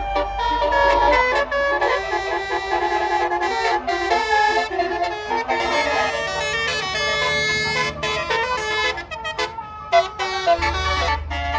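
A bus's Basuri musical "telolet" horn playing a melody in stepping tones. A low rumble joins near the end.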